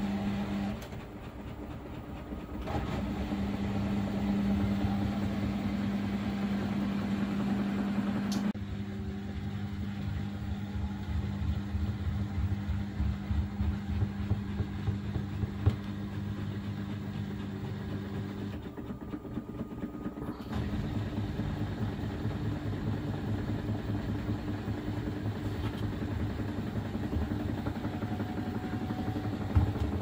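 Samsung WW90T684DLHS7 front-loading washing machine running its drum: a steady motor hum over a pulsing low rumble, with a few sharper knocks near the end. This is the heavy noise and pressure on the door during spin-up and load balancing that the owner finds excessive, and that new shock absorbers, a new door seal and added dampers have not cured.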